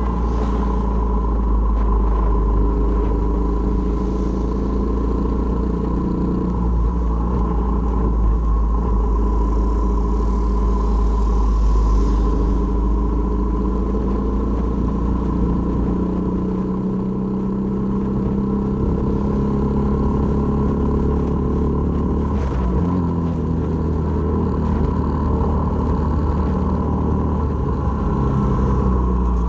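Honda MSX125's single-cylinder four-stroke engine running under way, its note shifting in pitch several times as the speed changes.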